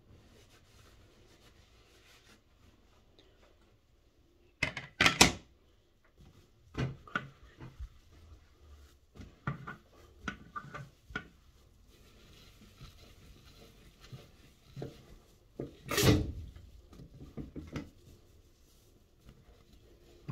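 Knocks and clatters of cleaning items handled on a bathroom counter and sink while wiping with a cloth, with a loud cluster of sharp sounds about five seconds in and another around sixteen seconds.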